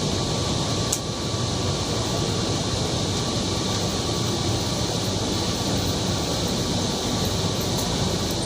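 Steady interior hum of a Kochi Metro train car standing at a station, its air conditioning running, with one short click about a second in.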